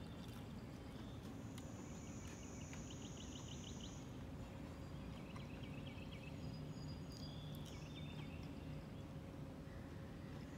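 Quiet outdoor ambience: a steady low background rumble, a thin high buzz from about a second in to about four seconds, and two short runs of rapid chirping, the first around three seconds in and the second around five seconds in.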